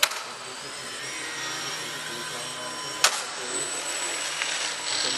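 Electric motor and propeller of a small indoor RC plane whining steadily in flight, the whine rising in pitch about a second in. Two sharp clicks, at the start and about three seconds in.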